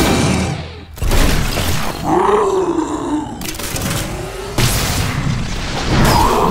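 Cartoon battle sound effects for a robot ankylosaurus: a heavy hit about a second in, a pitched roar that rises and falls, then sudden blasts from its multi-barrelled cannon, over background music.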